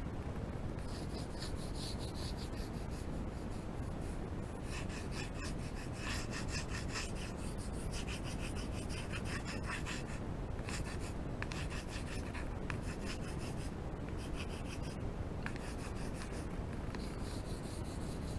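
Coloured pencil rubbed rapidly back and forth on paper, shading a large area in runs of quick strokes with short pauses, over a steady low background hiss.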